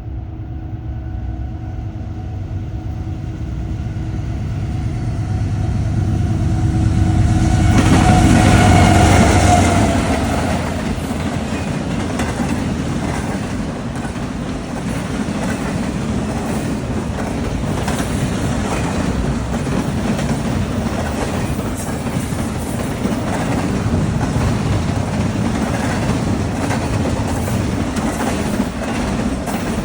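A train passing: the locomotive grows louder to a peak about eight seconds in, then the cars roll by in a steady rumble with the clickety-clack of wheels over rail joints.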